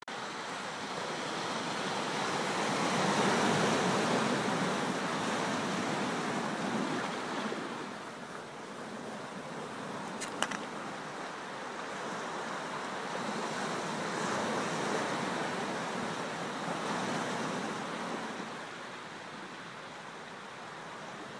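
Ocean surf washing onto a beach: a steady rush that swells and eases twice, with a short click about ten seconds in.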